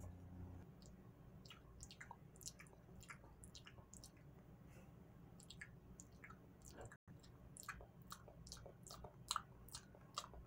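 Faint, irregular clicks and smacks of pretend eating as the toy lions are made to feed on the zebra figure.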